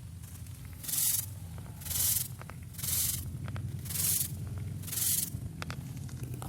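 Hand spray bottle misting water: five short hisses about a second apart, over a steady low hum.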